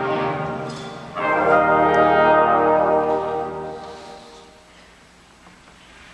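Concert band of woodwinds and brass playing the closing chords of a piece: a chord dies away, then a loud final chord comes in about a second in, is held for about two seconds and fades out, leaving a quiet tail for the last couple of seconds.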